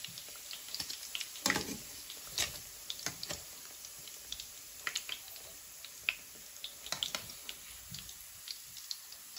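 Hot oil sizzling and crackling in a frying pan around battered pork pieces as they are lifted out on a wire skimmer, with scattered sharper pops and a few louder clicks of metal tongs on the skimmer.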